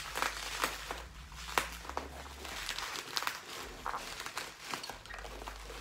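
Bubble wrap and packing material crinkling and rustling as they are handled, in short, irregular crackles.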